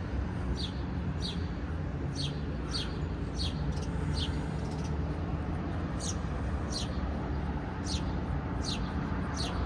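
A small bird calling over and over, short high chirps that drop in pitch, about one or two a second, over a low steady rumble of road traffic.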